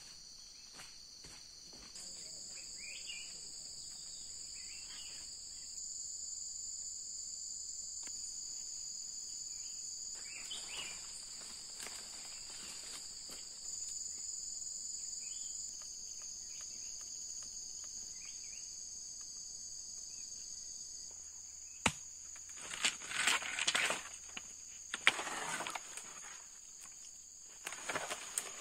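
Steady high-pitched insect chorus with faint footsteps on a forest path. From about two-thirds of the way in, loud bursts of rustling and cracking as dry sticks and leafy branches of an old shelter are pulled and handled.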